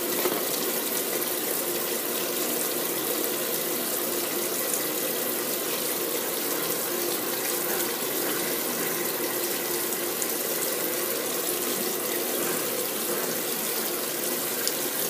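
Top-loading washing machine filling: water running steadily into the tub over the laundry, with no break or change.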